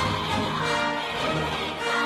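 Orchestral background music with held string notes.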